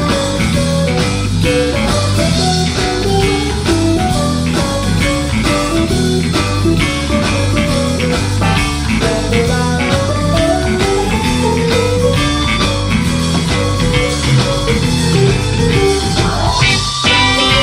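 Live blues band playing: an electric guitar lead with bent, gliding notes over bass and a drum kit.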